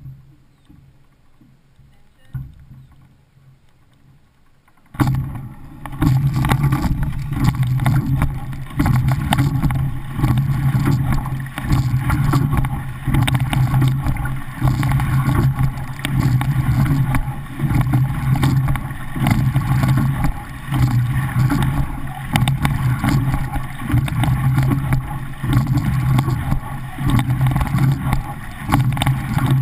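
Water rushing along a racing shell's hull and wind on the deck-mounted microphone. The sound starts suddenly about five seconds in and swells and eases with each rowing stroke, about once every second and a half.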